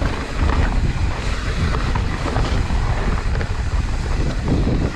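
Mountain bike descending a rooty dirt trail: wind buffeting the microphone over the rumble of tyres rolling on dirt and roots, with scattered small clicks and knocks from the bike.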